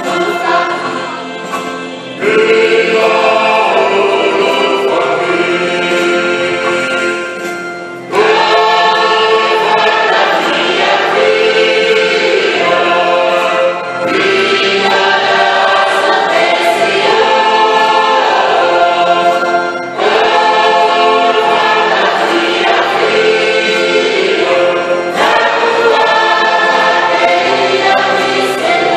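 Church choir of men and women singing a hymn together, in long phrases that each begin again strongly about every six seconds after a brief dip.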